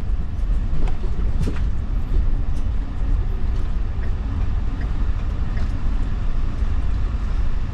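Steady low rumble of a moving road vehicle, with a few faint clicks.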